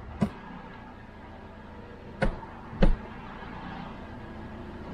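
Toyota RAV4's engine idling with a steady low hum heard from inside the cabin, with three short clicks and knocks from the automatic gear selector being shifted from neutral into reverse: a light one about a quarter second in, then two louder ones half a second apart near the middle.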